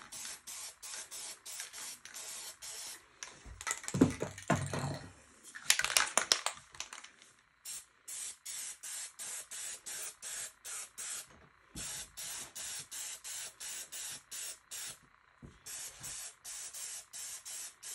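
Aerosol spray paint can hissing in short, rapid bursts, about three or four a second, as black paint is sprayed on in dabbed passes. A couple of louder knocks and clatter, the loudest sounds, break in about four and six seconds in.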